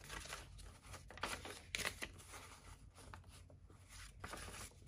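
Paper bills rustling in several short, crisp bursts as they are handled, over a faint low steady hum.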